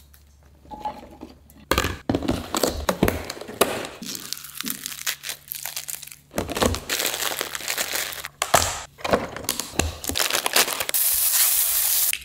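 Kitchen food-prep sounds: salad greens crinkling as they are torn and dropped into a bowl, among scattered clicks and knocks. Near the end, sliced shiitake mushrooms sizzle steadily in a frying pan.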